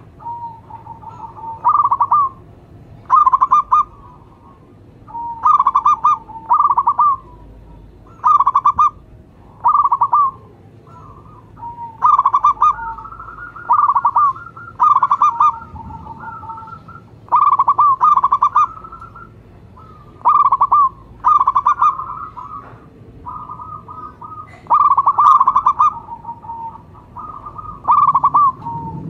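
Zebra doves (perkutut) cooing: short, rippling coo phrases repeat about every one to two seconds, with some steadier held notes, one lower and one higher, between them.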